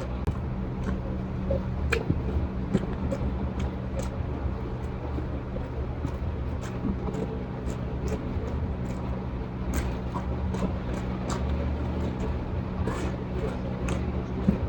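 Mouth sounds of someone eating: chewing, smacking and the odd click at irregular moments, over a steady low hum.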